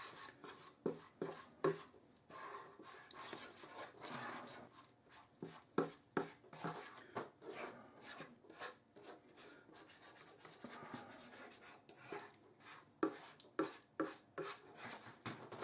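Slotted plastic spatula stirring and scraping a stiff paste of flour and curry powder in oil around a saucepan: faint, irregular scrapes and taps.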